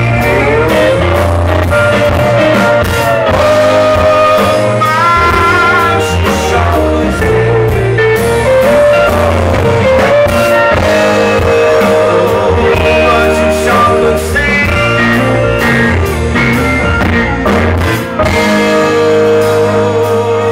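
Live rock band playing with electric and acoustic guitars, bass and keyboards, with a lead line sliding between notes.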